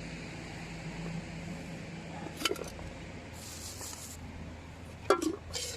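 Water splashing briefly as garlic shoots are rinsed by hand, with a click and a few knocks, over a steady low hum.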